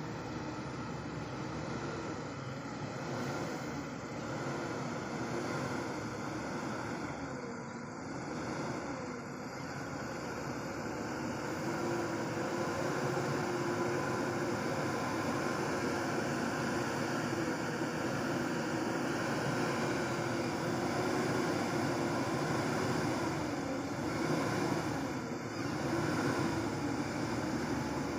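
Diesel truck engine running under load, its note wavering slowly up and down and growing a little louder partway through.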